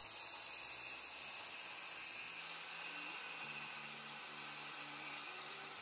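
Skilsaw circular saw cutting through a hard oak board with the blade set deep, a steady hissing whir of blade and sawdust.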